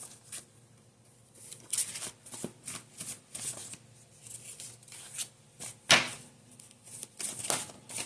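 Tarot cards being shuffled and handled: a quick, irregular run of papery flicks and slaps, the loudest about six seconds in.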